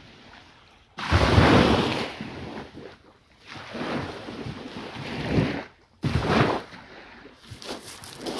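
Surf breaking on a beach: repeated swells of rushing noise, the loudest starting suddenly about a second in and another around six seconds in.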